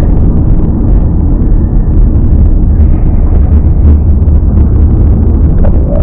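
Steady low rumble of a car driving at street speed, engine and tyre noise heard from inside the cabin through a dashcam microphone.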